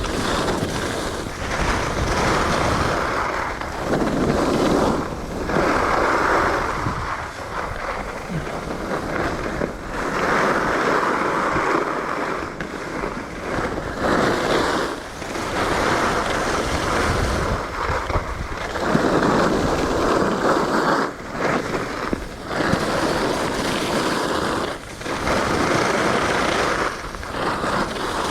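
Skis carving and scraping across packed snow turn after turn, the rush swelling and easing every couple of seconds, with wind rushing over the microphone.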